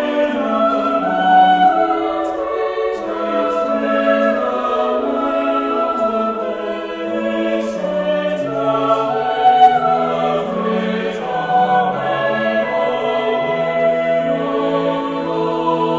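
Background choral music: a choir of voices singing slow, sustained chords.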